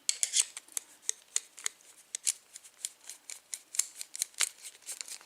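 Quick irregular series of small sharp clicks, about five or six a second, from working the Phillips screw out of an American Lock 5200 series padlock.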